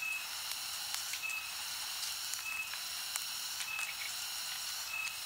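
Steady high hiss of background ambience, with a short high-pitched chirp repeating about once every second and a bit.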